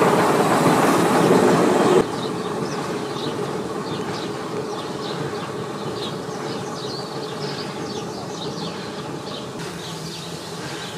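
Vulcan RM 50 railcar running stationary, a loud steady engine sound for about two seconds. Then an abrupt drop to a quieter steady hum with many short high chirps over it.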